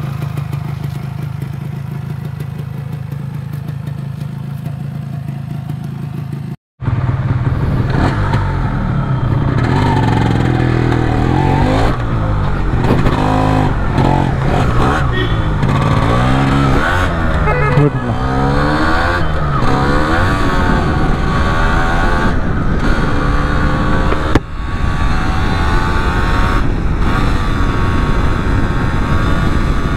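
Yamaha RX135 5-speed's two-stroke single-cylinder engine idling steadily, then, after a short break about a third of the way in, the bike under way: the engine note rises and falls again and again as it accelerates and shifts through the gears.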